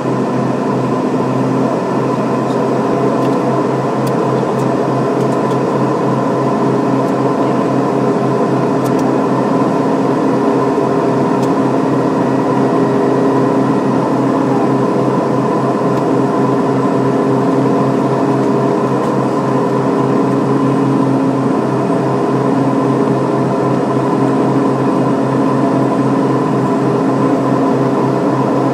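Cockpit noise of a Beechcraft King Air B200's twin Pratt & Whitney PT6A turboprops in flight: a loud, steady propeller drone with a fast throb in the low hum and several steady higher tones above it.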